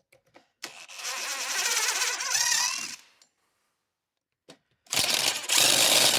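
Impact wrench hammering in two bursts, each a couple of seconds long, with a short pause between, working on the 32 mm nut.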